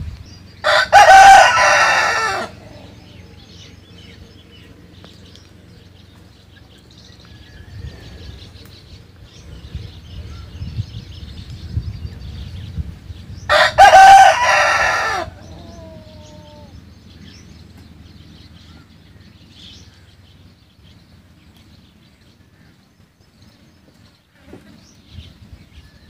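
A rooster crows twice, about 13 seconds apart, each crow lasting about two seconds. Between the crows there is faint clucking and small bird chirps.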